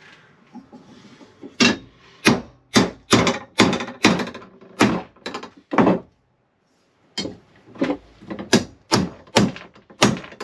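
Claw hammer striking a perforated metal strap laid over a mallet on a wooden workbench: sharp blows about two to three a second, in two runs with a pause of about a second in the middle, hammering a bend out of the metal.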